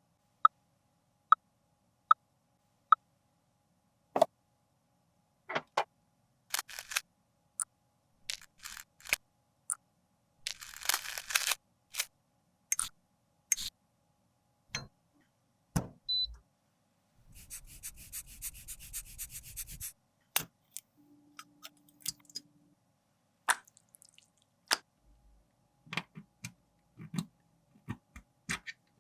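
Small clicks and taps of tools and makeup containers being handled. It opens with four evenly spaced ticks a little under a second apart, has a scraping stretch about eleven seconds in, and a grainy, fast-rattling scrape from about seventeen to twenty seconds.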